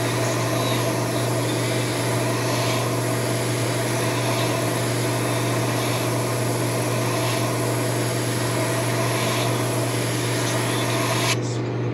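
Airbrush spraying blue paint onto a lure blank in a steady hiss, which cuts off suddenly about eleven seconds in. A steady low hum runs underneath.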